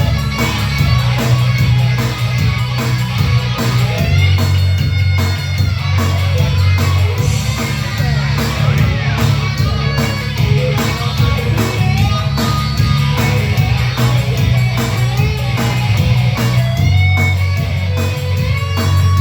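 A live rock band playing loud: electric guitar over a heavy bass line and drums.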